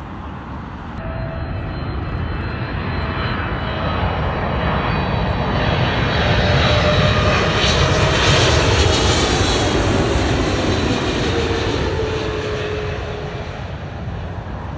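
Twin-engine jet airliner on landing approach passing low overhead. Its engine noise swells over several seconds, peaks about halfway through, then fades, while a whine drops slowly in pitch as it passes.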